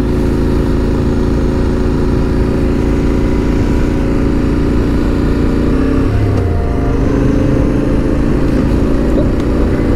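Yamaha Ténéré 700's parallel-twin engine running steadily while under way, over a constant rush of noise. The engine note shifts about six seconds in.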